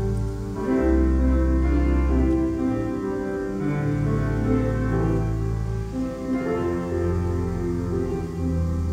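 Slow instrumental music on a keyboard instrument: held chords that change every second or two over a deep, moving bass line.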